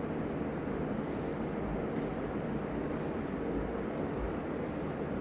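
Steady background hum of a room with two bursts of a high-pitched, evenly pulsing trill, like an insect chirping: one of about a second and a half starting after a second, and a shorter one near the end.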